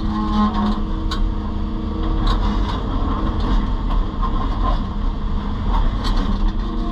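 Excavator's diesel engine and hydraulics running steadily under load, with a few light knocks.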